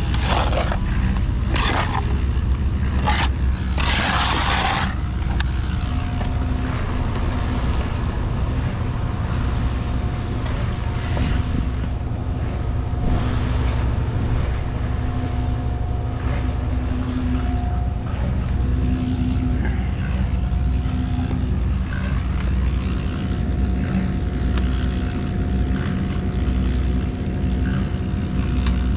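A steady, loud engine or machinery drone, with a few sharp scrapes or knocks in the first five seconds.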